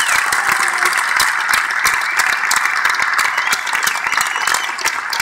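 A large audience applauding, dense clapping that holds at a steady level.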